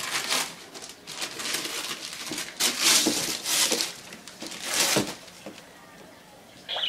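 Wrapping paper being ripped and crinkled by hand as a child tears open a present, in a run of short tearing bursts that die down about five seconds in.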